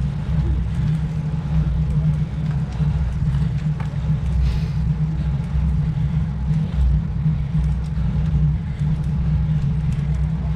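Wind buffeting the microphone of a camera riding along on a road bicycle: a steady low rumble with a few faint ticks.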